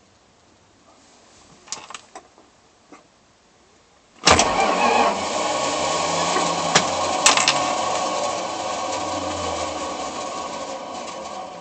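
Starter on a 1977 Dodge van's Slant Six engine kicking in suddenly with a harsh, noisy whir whose gears sound stripped: a bad starter. A few light clicks come before it, and the sound slowly tapers off toward the end.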